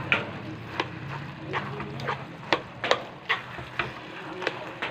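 Sticky rice for biko being stirred in a metal basin: a spoon clicks and knocks against the basin at irregular moments, about ten times, over the soft wet shuffle of the rice.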